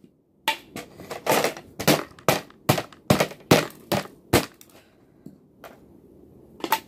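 Sharp plastic cracks and snaps of a computer keyboard being broken apart by hand: a quick, uneven run of about ten snaps over the first four and a half seconds, then one more near the end.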